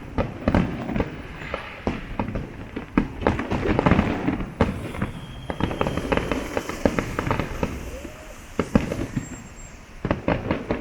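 Aerial fireworks display: a rapid, irregular barrage of bangs and pops. The bangs thin out about eight seconds in, then pick up again near the end.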